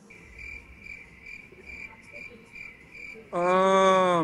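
A man's drawn-out 'uhhh', held for about a second near the end, over a faint high chirping that repeats about two and a half times a second.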